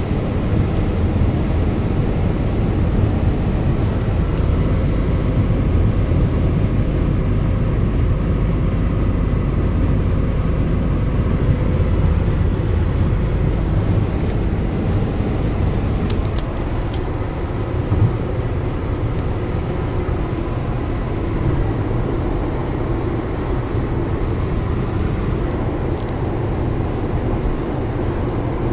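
Steady road noise from tyres and engine, heard from inside a car's cabin while it drives along a highway. A few sharp clicks and a single knock come a little past halfway.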